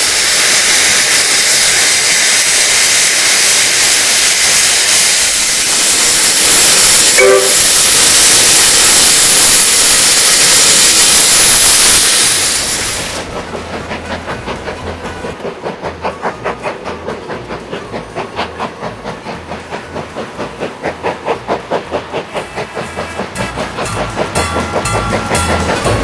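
Steam locomotive letting off a loud, steady hiss of steam for about twelve seconds, with a short pitched tone about seven seconds in. The hiss then stops and the engine starts chuffing in even beats that come a little quicker as it gets under way.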